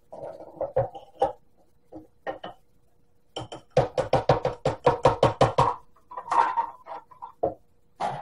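Home-canned chickpeas being shaken out of a glass mason jar into a plastic food processor bowl: scattered knocks and plops, then a fast run of about a dozen knocks, roughly six a second, around the middle. Near the end the jar's liquid is poured in after them.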